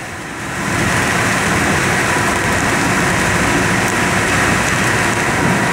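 Steady rushing background noise with a faint steady hum running through it.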